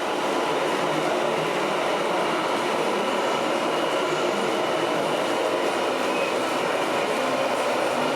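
Steady, even mechanical running noise with no pauses, like small motors and gears running.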